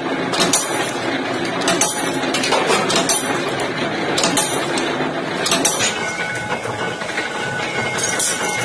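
Mechanical power press running and punching steel strips, each stroke giving a sharp metallic clank, roughly once a second over the first six seconds. Steady machine noise runs underneath, with fewer strokes near the end.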